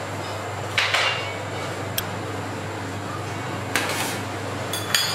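Metal tongs clinking against slate serving plates and a steel counter while wagyu cubes are plated: several sharp clinks a second or so apart, over a steady low hum.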